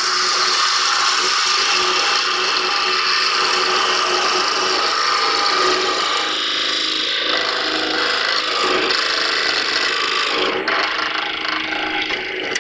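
Carbide-tipped parting tool cutting into a spinning pine block on a wood lathe: a steady, loud rasping cut over the run of the lathe. The cutting stops suddenly at the very end as the piece parts off.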